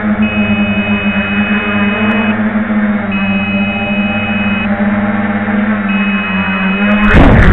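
Small FPV quadcopter's motors and propellers buzzing steadily while its low-battery alarm sounds three long, high two-tone beeps: the battery is running flat. Near the end a loud, rough burst of noise as the quad comes down onto the pavement and the motor buzz stops.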